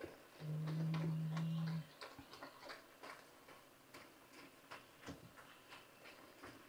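Spatula tapping and scraping in a skillet as it breaks up ground beef, a string of light, irregular clicks and scrapes. A steady low hum sounds over the first two seconds, then stops.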